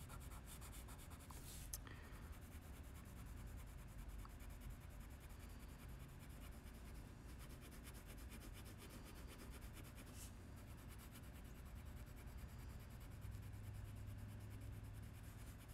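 Faint, steady scratching of a colored pencil on drawing paper in repeated back-and-forth coloring strokes.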